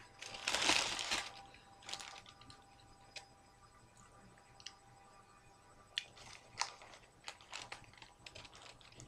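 Paper wrapping around a lamb yiros rustling and crinkling as hands peel it back. A loud rustle comes about half a second in, then scattered light crackles of the paper, more frequent toward the end.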